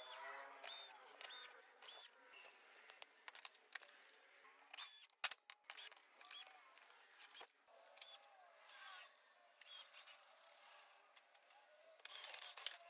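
Faint clicks and handling noises of a small cordless screwdriver and fasteners being worked on motorcycle body panels, with one sharper click about five seconds in.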